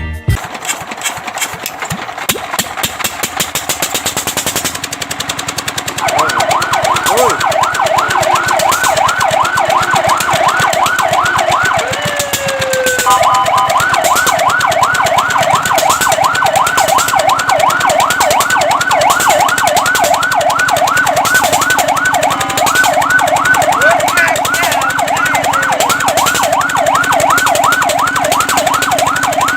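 Fire truck siren in a fast yelp, its pitch rising and falling several times a second, starting about six seconds in and running on with brief changes in pattern. Before it, a fast rhythmic clatter.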